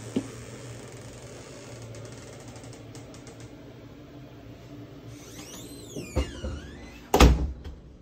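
A door squeaks with a few gliding squeals, then thumps twice, the second thump about a second later and the loudest. A steady low hum runs beneath.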